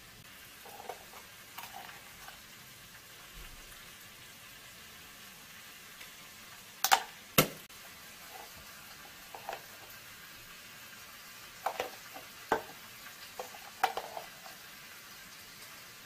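Sharp clicks and taps of a spoon against a glass bowl and a plastic container as red pepper flakes are tipped into a sauce, over a steady faint hiss. The loudest are two clicks about half a second apart around the middle, with a few more scattered near the end.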